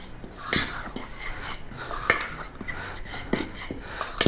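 A utensil stirring flour and other dry baking ingredients in a stainless steel mixing bowl: steady scraping broken by irregular clinks against the metal bowl, a few of them louder.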